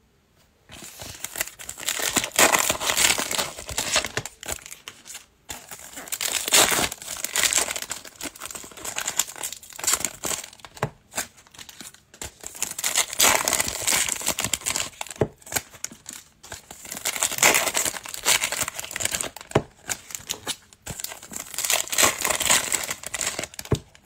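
Foil wrappers of Panini Prizm football card packs crinkling and tearing as they are opened by hand, with the cards being handled, in bursts of a couple of seconds again and again.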